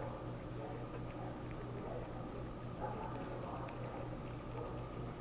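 A kitten eating from a bowl, with many small, irregular clicks and crunches of chewing over a low steady hum.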